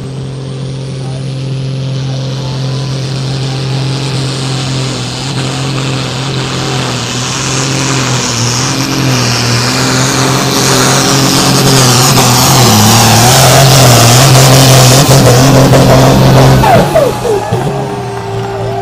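Super Sport class pulling tractor's diesel engine running flat out during a pull, growing steadily louder, then throttled back about seventeen seconds in with the pitch falling away.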